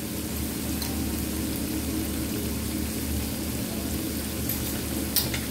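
Herbal leaf paste frying in coconut oil in a pan, a steady sizzling hiss with a couple of small pops near the end: the leaves cooking down in the oil while making homemade herbal hair oil. A faint steady low hum runs underneath.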